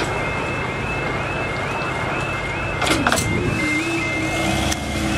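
A high electronic two-note warning tone repeats steadily over the low rumble of a passing miniature train. About three seconds in, a tone sweeps sharply down twice and then settles into a low steady tone.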